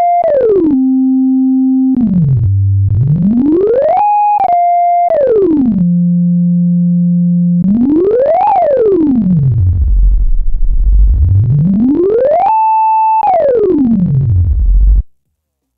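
Helm software synthesizer playing one sustained tone that holds a pitch, then glides smoothly up or down to another and holds again, with a few sudden jumps, as the MIDI XY Pad Controller bends the pitch from a frozen note toward the note under the mouse. It cuts off about fifteen seconds in.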